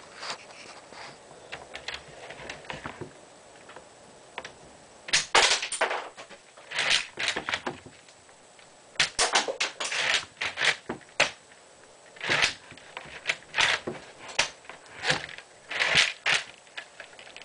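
Lego brick-shooting replica rifle being fired repeatedly: sharp plastic clicks and clatters of the mechanism and the fired bricks, coming in uneven clusters a second or two apart.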